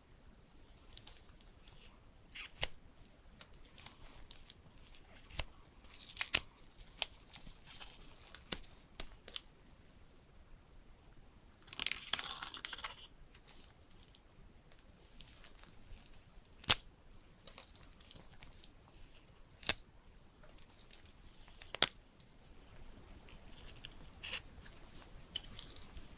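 Nitrile-gloved hands handling a coiled USB-C charging cable and a small plastic USB-C adapter: scattered sharp clicks and taps with soft rustling, and a longer rustle about twelve seconds in.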